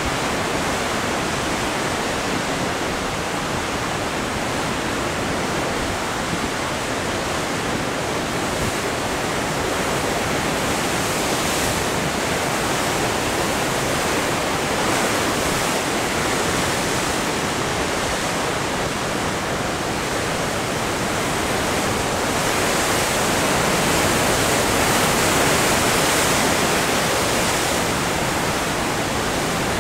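Heavy Pacific Ocean surf breaking and washing white water over and around coastal rocks: a continuous rushing roar that swells louder for a few seconds late on.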